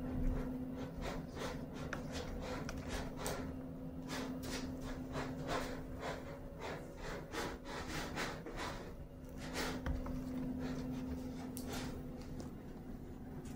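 Kittens' claws scratching and rustling in quick, irregular short strokes, over a steady low hum.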